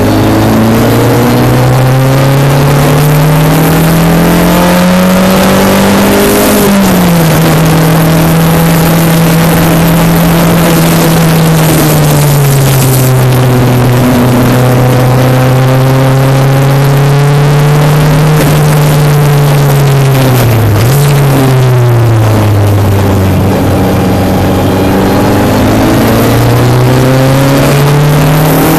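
Single-seater race car engine heard through the onboard camera, accelerating hard. Its pitch climbs, drops at an upshift about a quarter of the way in, then holds. It dips sharply for a moment about two-thirds through, as if the driver lifts or changes down for a corner, and climbs again near the end.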